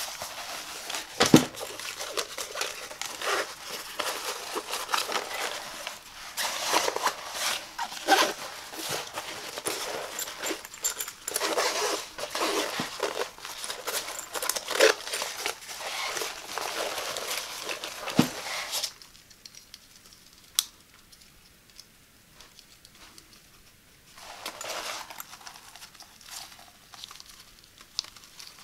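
Hands rubbing and handling a fabric laptop backpack: dense rustling and scratching of the cloth, with a sharp knock about a second in and another about two-thirds through. It then goes much quieter for several seconds before the rustling starts again near the end.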